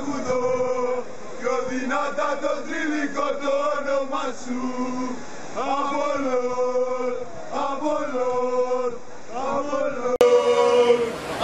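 A group of male football supporters chanting a club song together in sung, repeated phrases. About ten seconds in it cuts to a louder stretch of chanting.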